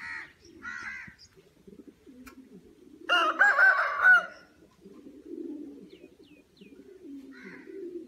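Domestic pigeons cooing steadily, with a rooster crowing loudly once for about a second, about three seconds in. A few short bird calls are heard near the start and near the end.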